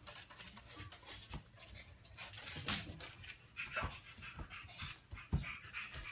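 Dog-like panting: short, breathy huffs coming in irregular runs, with a soft low thump about five seconds in.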